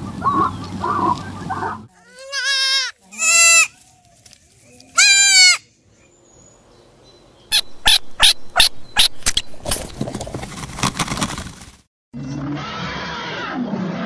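A run of animal calls: three loud, wavering, bleat-like calls, then a grey squirrel's rapid sharp chattering, about three calls a second, that thins out after a few seconds. Near the end it cuts to a steady outdoor hiss with a low hum.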